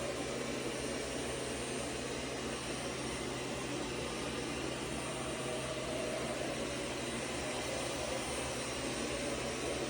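Steady background noise of a machine shop: an even hiss with a low, unchanging hum underneath and no distinct knocks or changes.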